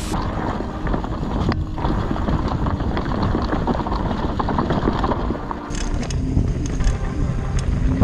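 Mountain bike riding down a dirt trail, heard from a camera on the bike or rider: wind on the microphone and a steady rumble of tyres over rough ground, with the bike clattering. The sharp knocks and rattles come thicker in the last couple of seconds.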